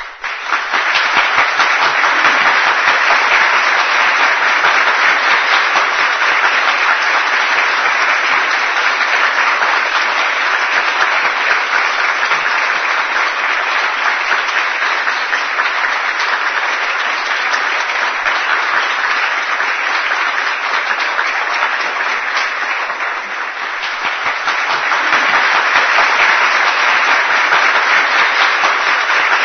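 Large concert audience applauding: dense, steady clapping that swells up in the first second, dips a little a few seconds before the end, then builds again.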